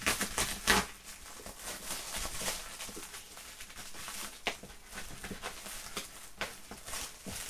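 Black plastic wrapping on a parcel crinkling and crackling as it is handled and pulled open, in irregular sharp crackles, the loudest just under a second in.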